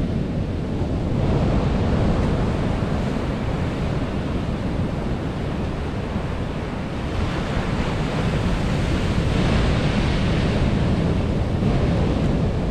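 Sea surf breaking and washing up a sandy beach in rising and falling surges, with wind rumbling on the microphone.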